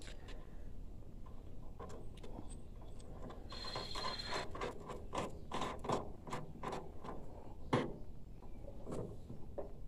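Metal clicking and scraping as a steel steering tie rod is worked into a riding-mower front spindle, with a brief squeak about three and a half seconds in and a quick run of clicks in the middle.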